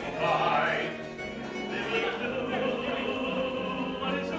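Live stage-musical music: a pit orchestra playing, with singing voices.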